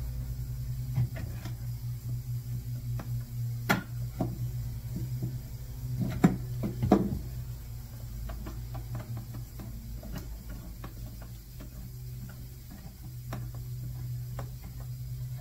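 Metal bar clamp being tightened on a wooden box: scattered sharp clicks and knocks of the clamp's screw handle and jaw against the wood, the loudest a few seconds in, over a steady low hum.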